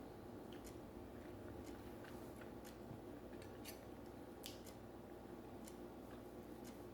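Faint sounds of someone eating: scattered soft clicks and smacks from chewing and utensils, over a steady low hum.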